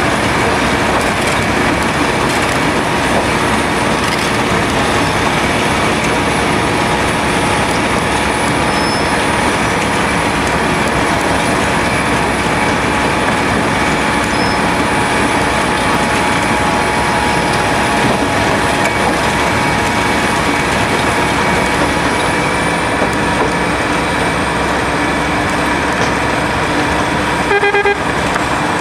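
Cold milling machine running under load, its milling drum grinding up asphalt and its engine running steadily, with milled material pouring off the conveyor into a dump truck. Near the end comes a short horn toot.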